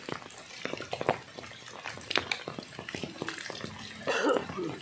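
Steady rain falling on open water, with many sharp taps of drops landing close by. About four seconds in, a short voice-like sound rises briefly above the rain.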